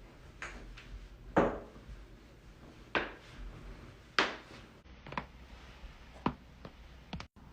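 A series of sharp cracks and pops from joints being cracked, about eight in all at irregular intervals, the loudest about a second and a half in.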